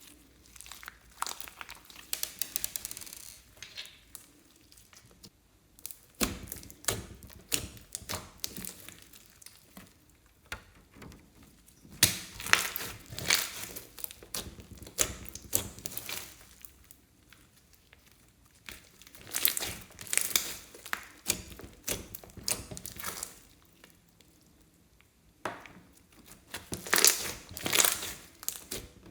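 Slime being kneaded and squeezed by hand, giving rapid runs of small clicks and pops in several bursts of a few seconds each, with quieter pauses between.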